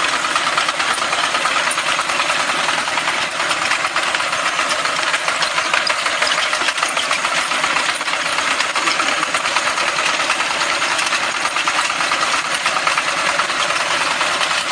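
Potato harvester running behind its tractor engine, with a steady, dense mechanical rattle and clatter over the engine.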